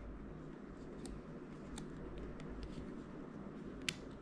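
Faint small clicks and light scraping as a plastic key cap is worked onto the hooks of an M1 MacBook Air keyboard, with one sharper click near the end.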